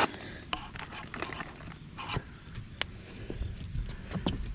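Scattered knocks and scrapes on wooden deck boards as a landed chain pickerel drops and flops on the deck, with a few sharp single knocks spread irregularly through it.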